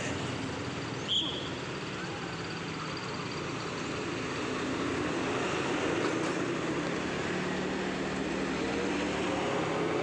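Road traffic with the low hum of a large vehicle's engine, growing a little louder through the second half as it comes closer. A short high chirp sounds about a second in.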